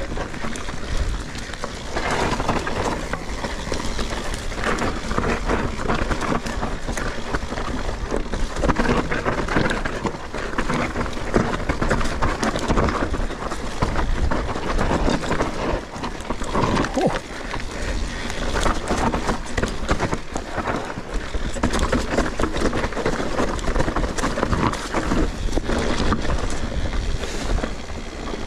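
Mountain bike riding fast down a rough dirt trail: tyres rumbling over dirt and roots, with constant rattling and knocking from the bike over bumps and wind buffeting the camera microphone.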